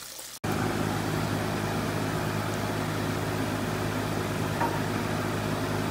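Steady hum of a kitchen exhaust fan running over the stove, with a low drone under an even hiss. It starts abruptly at a cut about half a second in.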